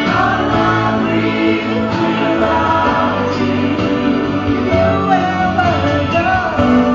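A woman singing into a handheld microphone over instrumental accompaniment, in a sung melody that bends and glides.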